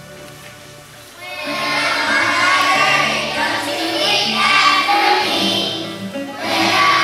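Background song: soft instrumental accompaniment, then young voices come in singing the melody about a second in.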